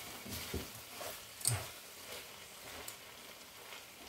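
Wooden spoon stirring rice and vegetables in a hot frying pan, with a few soft knocks and scrapes against the pan over a faint sizzle.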